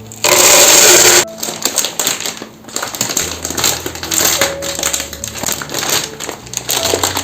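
A loud rush of rattling noise lasting about a second, then a quick run of clicks and rattles as items are handled, over soft background music.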